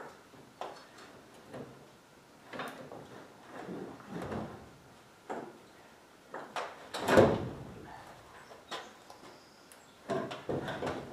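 A Rotax 582 engine being slid and shifted on a pickup's tailgate: a string of irregular scrapes and knocks, the loudest about seven seconds in, with another cluster near the end.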